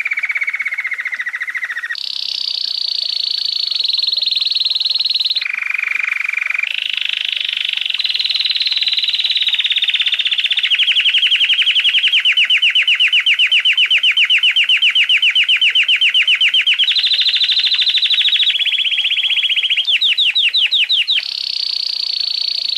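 Domestic canary singing one long unbroken song: a chain of trills that switch pitch every few seconds, with a long run of rapid, evenly repeated notes in the middle and a few quick rising notes near the end.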